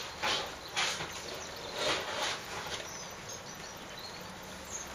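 Garden ambience in rain: a steady hiss, with four short rushes of noise in the first half. Faint, high bird chirps come in around the middle and near the end.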